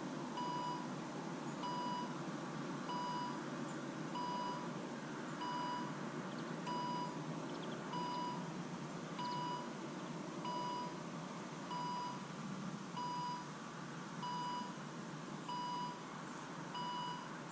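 Car warning chime with the ignition switched on: one short single-pitched beep repeating evenly about once every 1.3 s, over a steady low hum.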